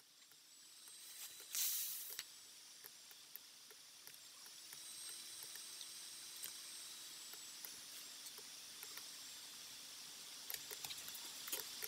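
Scattered quick clicks of a computer mouse over a steady hiss and a faint low hum, with one short, louder rush of noise about a second and a half in.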